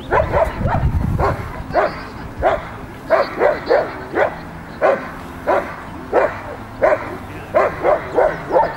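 Belgian Malinois barking over and over, sharp single barks coming about one to two a second, with a low rumble under the first second or so.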